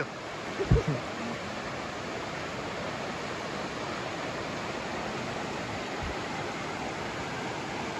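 Creek water rushing steadily over rocks in small riffles, with a brief thump just under a second in.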